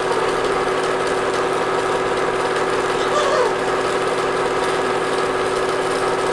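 Home-movie film projector running steadily, its motor and film transport giving a constant mechanical hum.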